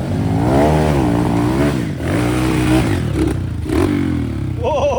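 Dirt bike engine revving up and down in pitch, with rattling, as an enduro trail motorcycle is ridden at an off-road obstacle. Near the end comes a quicker series of short rising and falling revs.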